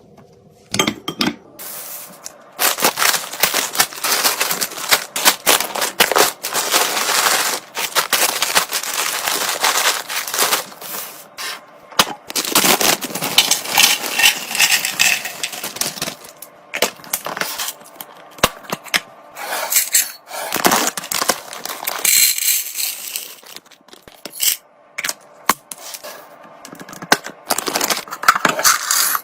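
Restocking sounds: containers and packaging being handled and set down, with crinkling, scraping and many sharp clicks and clatters, in busy stretches broken by short pauses.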